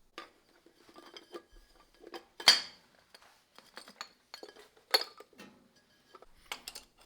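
Metal parts and tools clinking and knocking together in a string of separate clinks, the loudest about two and a half seconds in and another near five seconds.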